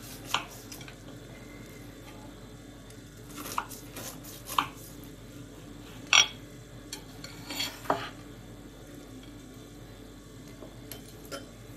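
A kitchen knife tapping and scraping against a ceramic plate as a crumbly baked cake is cut through and a slice lifted out: a handful of scattered clinks and scrapes, the sharpest about six seconds in.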